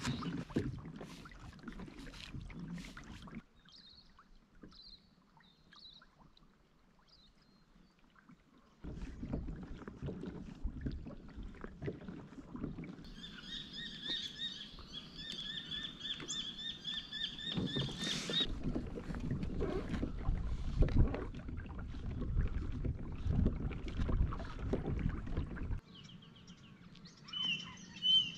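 Water sloshing against a Hobie kayak's hull as it moves along, uneven and broken by cuts, with a quiet stretch early on. Birds call over it, one giving a rapid, evenly repeated trill for about five seconds midway, and more chirps come near the end.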